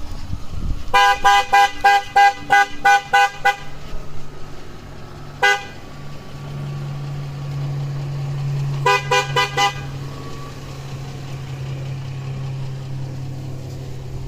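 Truck horn tooted in quick runs of short honks: about nine rapid toots, a single toot, then about six more, over the low, steady sound of the truck's engine running.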